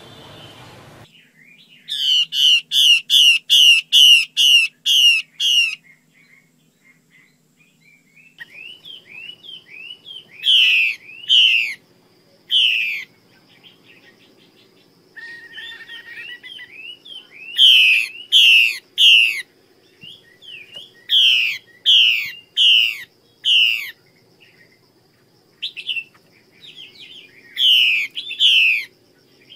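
Female Chinese hwamei calling: loud, sharp, downward-slurred notes, first in a fast run of about eight, then in pairs and threes separated by pauses.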